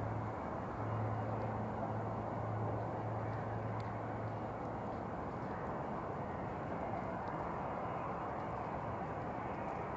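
Jet engines of a taxiing Airbus A320-family airliner at low thrust: a steady rushing whine. A low steady hum underneath stops about halfway through.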